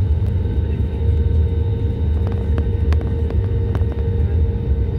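Steady low rumble inside the cabin of an Airbus A320neo moving on the ground before takeoff, with a steady engine hum. A few faint clicks come about halfway through.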